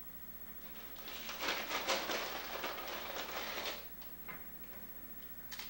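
Snack packaging crinkling and rustling as it is handled, a dense crackle for about three seconds, then a couple of faint ticks near the end.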